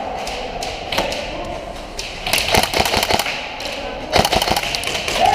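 Airsoft guns firing in an indoor arena: a single shot about a second in, then two rapid strings of shots, one a little past halfway and another near the end.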